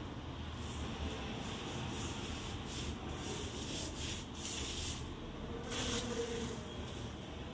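Hand rubbing back and forth over a small plate, making a run of irregular scratchy rubbing strokes, the loudest a little before the end.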